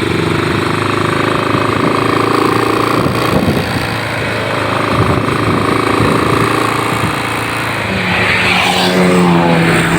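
Road vehicle engine running on the move, a steady drone with a held whine, and engine tones rising and falling over the last couple of seconds.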